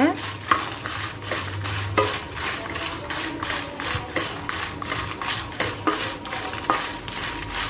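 Slotted spatula stirring dried red chillies in a metal kadai: a steady run of scrapes and clicks of the spatula against the pan as the chillies are roasted on a low flame.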